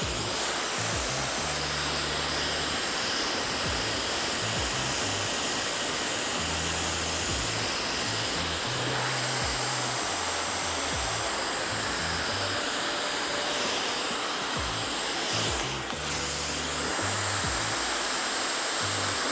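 Handheld hair dryer blowing steadily as hair is blow-dried and styled with a brush, with a brief dip in the airflow noise near the end. Background music with bass notes plays underneath.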